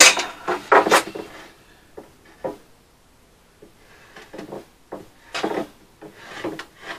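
Wooden plank being handled on the ground: a sharp knock, then a few more knocks, then short scraping and rubbing sounds of wood being moved about.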